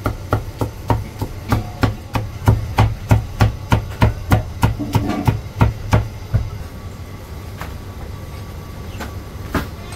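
Heavy Chinese cleaver chopping char siu on a thick wooden chopping block: a quick, even run of sharp chops, about three a second, stopping about six and a half seconds in, followed by a few light knocks.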